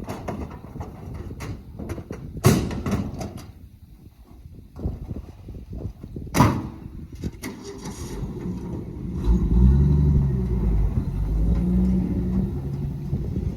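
Two sharp knocks, then a motor vehicle engine starts about nine seconds in and runs, its pitch rising and falling.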